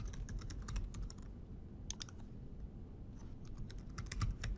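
Computer keyboard keys clicking as someone types, a quick run of keystrokes, a pause with a couple of strokes, then another quick run near the end.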